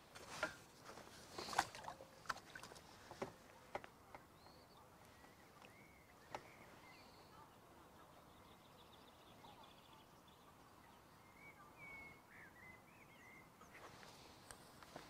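A few light clicks and knocks in the first four seconds and one more about six seconds in, from a fishing pole and tackle being handled. After that, faint bird chirps and a short trill over a quiet outdoor background.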